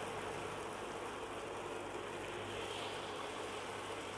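Batter-coated suliyam balls deep-frying in hot oil in a steel pan: a steady sizzling hiss.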